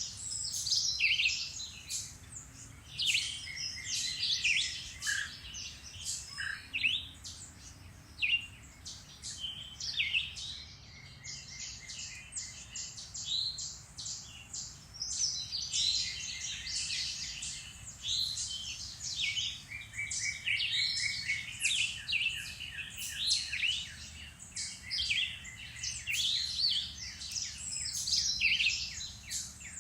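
Several songbirds singing at once in a woodland dawn-chorus style mix: overlapping chirps and whistles with rapid trills, coming and going in busy clusters throughout.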